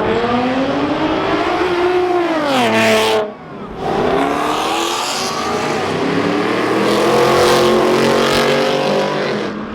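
Car engine revving hard under acceleration: its pitch climbs, falls away with a short lift about three seconds in, then climbs again and drops near the end.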